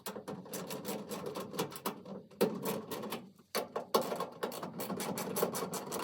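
Ratchet wrench with an 8 mm socket clicking in quick runs, with short pauses, as screws are backed out of a gas furnace.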